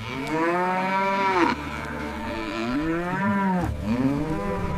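Cattle mooing: three long, drawn-out moos one after another.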